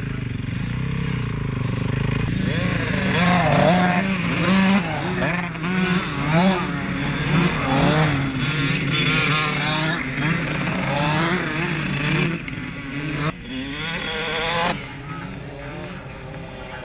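Motocross bike engines: a steady idle for the first couple of seconds, then engines revving hard again and again as the bikes pull away and ride, the pitch sweeping up and down. The sound drops to a quieter, steadier engine hum near the end.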